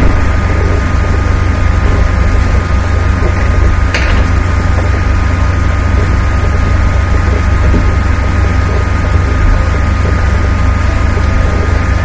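A loud, steady low hum with a hiss over it, unbroken throughout, and one light click about four seconds in.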